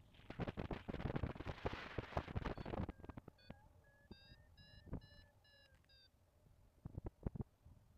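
Wind buffeting the microphone for about three seconds, then a paragliding variometer beeping in a quick run of short beeps for about three seconds: its climb tone, the sign of rising air. A few sharp knocks near the end.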